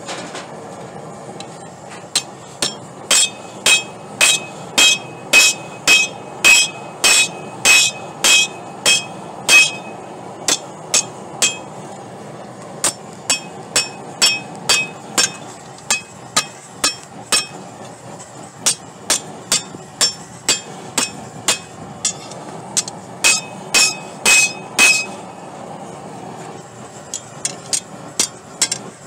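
Hand hammer striking steel bar stock on a Doyle anvil, blows coming about two a second, each with a bright metallic ring. The blows come in runs with short pauses, the last few much lighter taps, over a steady rushing noise underneath.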